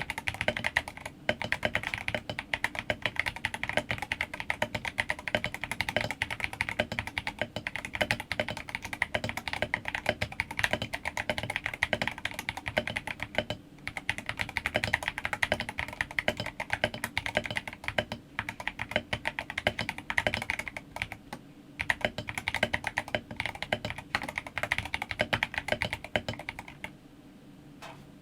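Fast, continuous typing on a Royal Kludge RKG68 mechanical keyboard, a dense run of key clacks with a few brief pauses, stopping shortly before the end.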